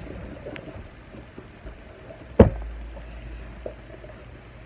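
Quiet handling noise as a pair of canvas sneakers is picked up, with one sharp thump about halfway through followed by a brief low rumble.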